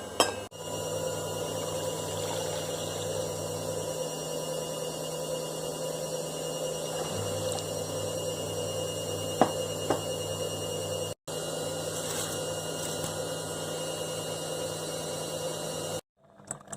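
Kitchen appliance running with a steady electric hum, with two light clicks about nine and a half seconds in.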